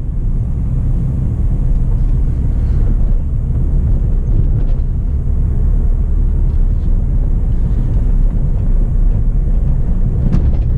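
Steady low rumble of road and engine noise inside the cabin of a moving Ford New Fiesta, with a few faint ticks.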